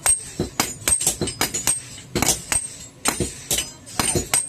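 Hand hammer striking iron on an anvil in quick, uneven blows, about three or four a second, each with a bright metallic ring.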